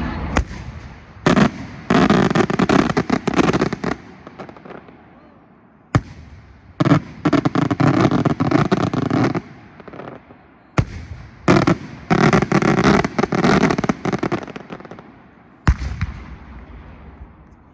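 Aerial fireworks going off: a sharp bang followed about a second later by a dense spray of crackling that lasts a couple of seconds. The pattern repeats three times, about every five seconds, and ends with a last bang near the end.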